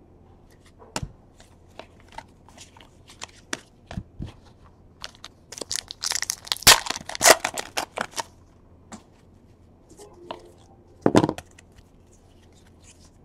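A trading-card pack's shiny wrapper is torn open and crinkled by hand about halfway through. Scattered light clicks and taps of cards being handled come before and after it.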